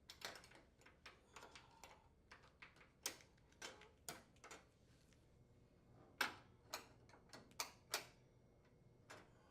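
Faint, scattered clicks and light metallic taps from an oven door's hinge locks and retaining brackets being handled and snapped into position, a dozen or so irregular ticks.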